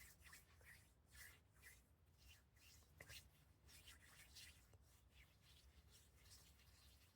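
Faint ASMR hand sounds: palms and fingers rubbing and brushing against each other in soft, irregular swishes, a few each second.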